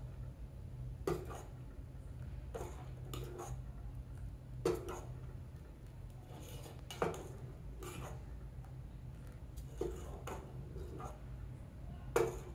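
Steel spoon stirring thin wheat-flour porridge in a steel saucepan, clinking and scraping against the pot's side and bottom every second or so, over a steady low hum.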